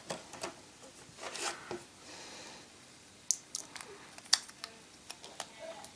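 Small sharp clicks, taps and brief rustles of handling an iPhone 4's internal parts as the logic board and its flex cables are set back into the metal frame, with a few sharper ticks in the second half.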